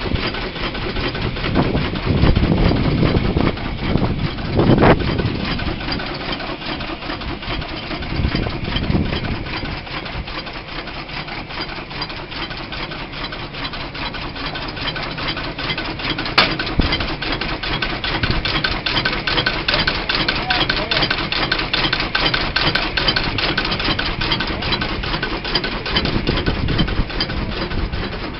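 McLaren steam traction engine running with a fast, even mechanical beat.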